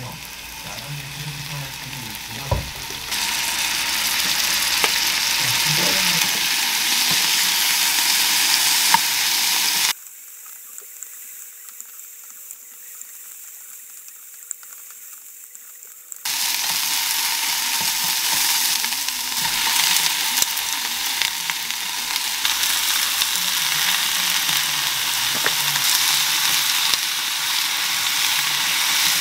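Chicken tenderloin pieces sizzling in olive oil in a nonstick frying pan, stirred with a wooden spatula. The sizzle starts softer, turns loud about three seconds in, drops to a quiet stretch around the middle, then comes back loud.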